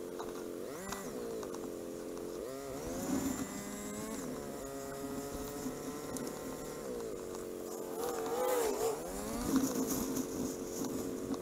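Motorcycle engine idling, then revving up and back down several times, about a second in, from about two and a half to four and a half seconds in and again near eight to nine seconds, as the bike pulls away and shifts up through the gears.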